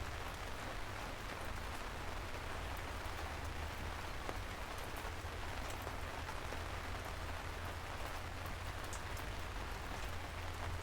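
Steady rain falling on a parasol, an even patter with scattered sharper drop ticks and a low rumble underneath.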